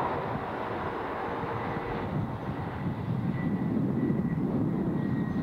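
Diesel locomotives of an approaching freight train, heard from a distance as a steady engine drone.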